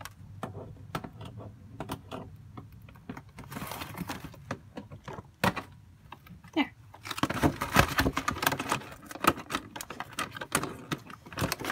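Doll box packaging being worked by hand as a stuck accessory piece is pried at: a string of sharp clicks and rustles that gets busier and louder about halfway through.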